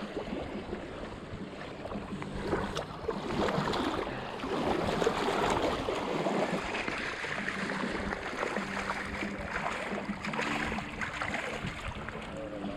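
Wind rushing over the microphone along with lapping water at the shoreline, and a faint low hum that comes and goes.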